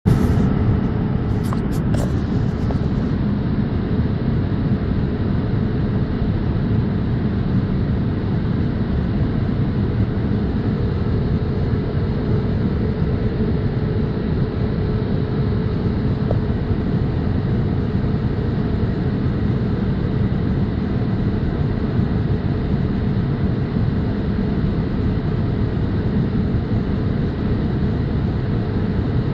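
Steady low rumble of cabin noise inside a Boeing 787-8 airliner, with a faint steady hum running through it. A few light clicks come about 1.5 to 2 seconds in.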